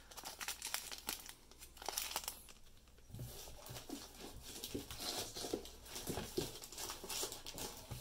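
Clear plastic repack bags of trading cards crinkling and rustling as they are handled, with scattered soft taps and clicks.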